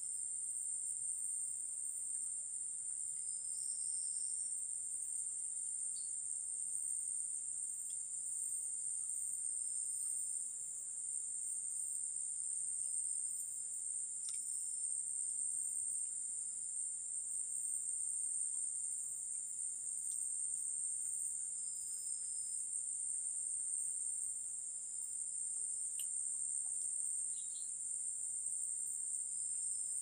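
Steady high-pitched insect chorus droning without a break, with a few faint short high chirps over it.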